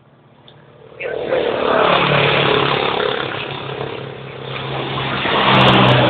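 A motor vehicle engine running close by, starting about a second in, swelling, easing off and swelling again, with a few sharp clicks near the end.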